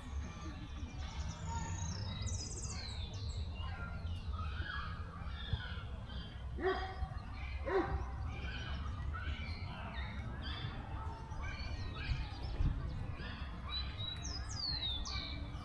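Wild birds chirping and whistling, with several quick falling notes near the start and again near the end. A dog barks twice mid-way over a steady low rumble.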